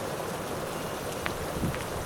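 Steady rain, an even rushing hiss with a couple of faint drop-like ticks in the second half.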